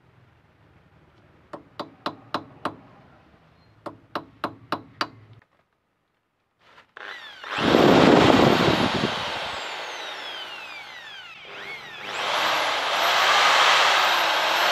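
Two quick runs of five sharp, ringing metal taps: a punch is being struck to mark a steel hub spindle. After a short gap, an electric drill starts and runs loud and steady, boring a 2 mm hole through the rear axle nut and spindle for a locking pin. The drill eases off, then runs up harder again near the end.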